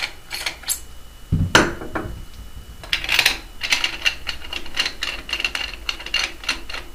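A paintball marker barrel being unscrewed and set down on the bench with a knock about a second and a half in, then a Planet Eclipse barrel muffler being threaded onto the marker: a run of quick small metal clicks and scrapes.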